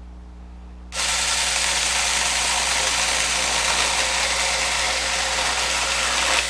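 Denqir 21V battery-powered mini chainsaw switched on about a second in and running steadily at full speed, its chain cutting through a piece of 2x2 wood, then stopping near the end. The bar and chain are running dry, with no oil.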